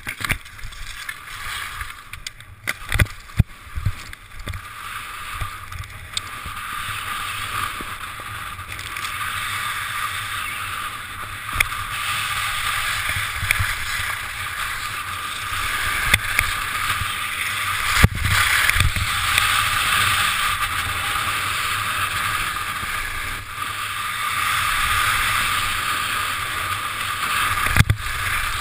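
Skis hissing and scraping over packed snow with wind rushing over the microphone during a fast ski cross run, getting a little louder partway through. Several sharp thumps, about three seconds in, midway and near the end, as bumps and landings jolt the camera.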